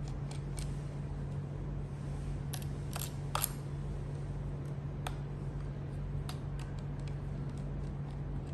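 Scattered light clicks from a screwdriver and the plastic body shell of an RC scale helicopter being handled while a screw is undone, over a steady low hum.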